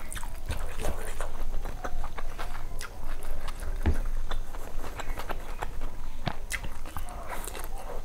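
Wet chewing and mouth smacking while eating rice and curry by hand, with irregular sticky clicks and squelches of fingers mixing the rice.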